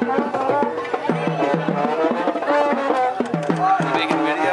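Live music with drumming: several melody parts playing together over a steady run of percussion hits.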